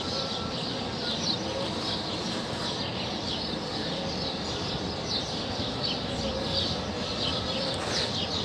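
Small birds chirping over and over, many short quick falling chirps, over a steady background hiss.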